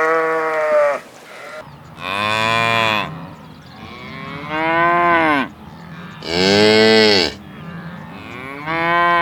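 Cow mooing: five moos in a row, each about a second long, rising and then falling in pitch.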